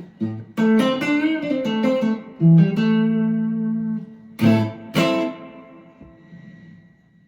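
Electric guitar played through an amp: a run of single notes with bends or vibrato, a held note, then two strummed chords about half a second apart that ring out and fade.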